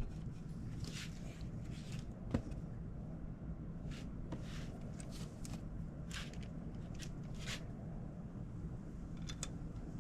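Light handling sounds of hand work on engine parts: a scatter of faint, short rustles and small clicks a second or two apart, with one sharper click about two and a half seconds in, over a steady low hum.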